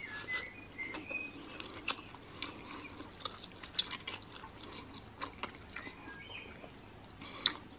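Quiet wet mouth sounds of someone eating jajangmyeon black bean noodles: slurping the noodles in and chewing, with a scatter of soft smacking clicks.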